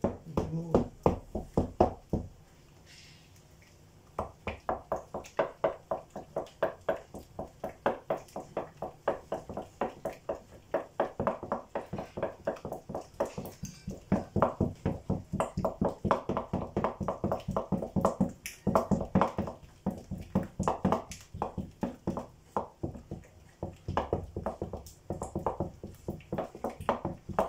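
Wooden spoon beating thick crêpe batter in a bowl: a fast, even run of strokes, about three or four a second, with a short pause a couple of seconds in. The batter is being worked until no lumps remain.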